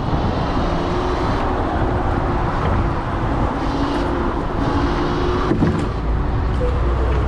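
Steady rushing noise of road traffic and wind.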